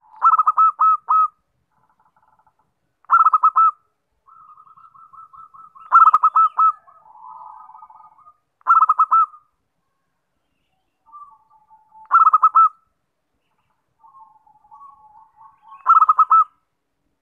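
Zebra dove (perkutut) cooing: six loud phrases of a few quick, clipped notes, about every three seconds, with fainter, lower cooing notes between them. This is the perkutut's lure call (suara pikat), used to draw in wild zebra doves.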